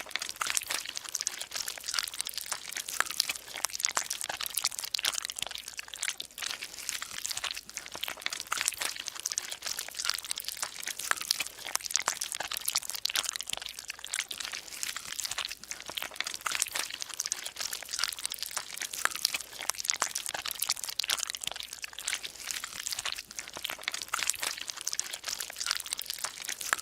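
Dense, continuous crackling made up of countless tiny clicks and crunches, irregular and without any beat or tone.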